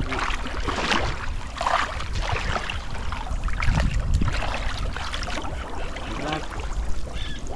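River water sloshing and splashing around wading legs and a seine net being dragged and hauled through the shallows, in irregular surges every second or so over a steady low rumble.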